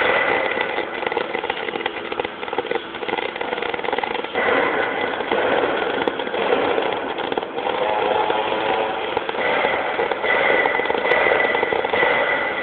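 MIG welding arc: a steady crackling buzz whose tone shifts a few times.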